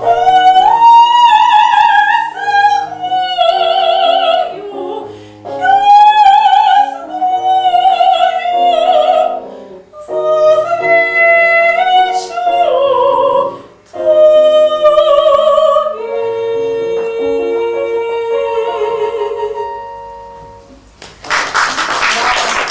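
Classical operatic singing with a wide vibrato over piano accompaniment. The song closes on a long held note that fades away, and applause breaks out near the end.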